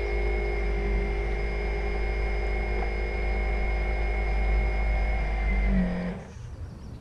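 Electric drive motor of a radio-controlled container ship model running with a steady whine over a deep rumble, heard through the hull-mounted camera; the whine drops in pitch and cuts out about six seconds in as the motor is throttled off.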